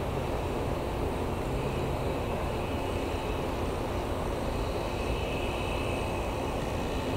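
Steady noise from a Shinano Railway 115-series electric train, even throughout with no clicks or breaks.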